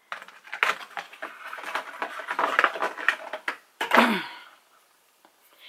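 A Funko Pop vinyl figure's cardboard and plastic packaging being handled and opened: rustling and scraping with many small clicks. About four seconds in comes a short falling vocal sound from the woman.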